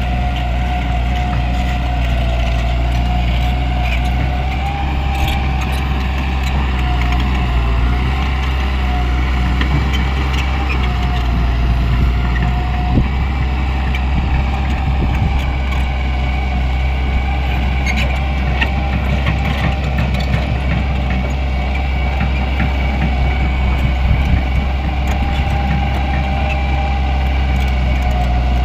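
Heavy construction machine's engine running steadily for the whole stretch, a low rumble with a steady higher whine over it.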